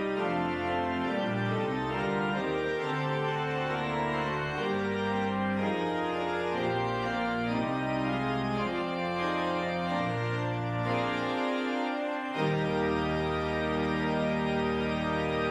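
Organ music: a church organ playing sustained chords over a moving bass line. About twelve seconds in, the bass drops out briefly, then a new, slightly louder chord sets in and holds.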